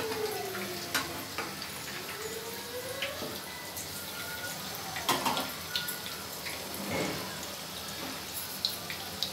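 Urad dal vadas deep-frying in hot oil in an aluminium kadai: a steady crackling sizzle. A metal slotted spoon clinks and scrapes against the pan a few times as the vadas are turned.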